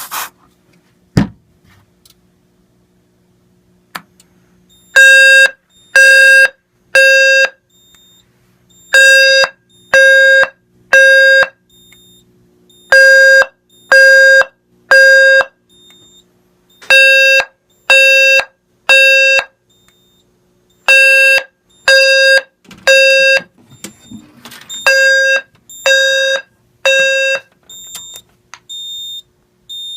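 G4LFWF-HVM low-frequency fire alarm sounder sounding the temporal-three evacuation pattern after the FX-PD smoke detector tripped the panel into alarm: three loud one-second low buzzing tones, a pause, then again, six times over. After the horn stops near the end, a faint high beeping carries on.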